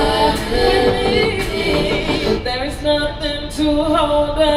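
A woman singing long held notes into a handheld microphone, amplified, over a backing track with a steady beat. Her melody moves higher about halfway through.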